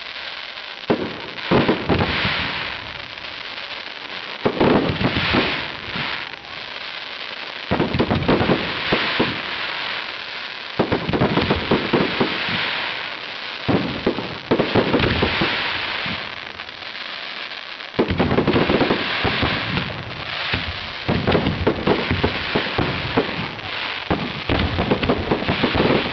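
Fireworks display: clusters of rapid bangs and crackling from bursting shells, with short lulls between the volleys.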